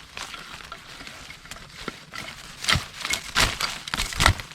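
A digging tool striking into soil and roots, a few hard strikes in the second half with light scraping and rustling between.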